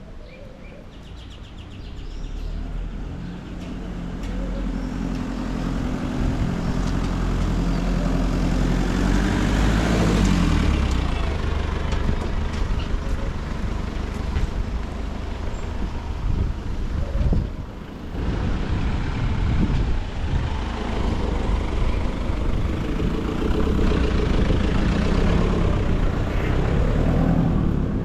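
A motor vehicle's engine running close by over a low rumble. It revs up about ten seconds in and again near the end.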